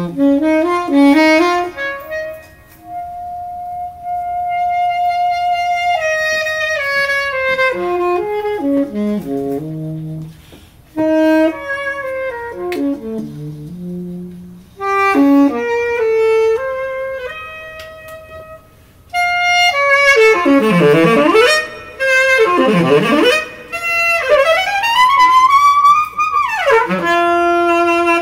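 Three saxophones playing together: held notes and short overlapping phrases with brief gaps between them. In the last third come loud swooping glides that fall and rise again, three times.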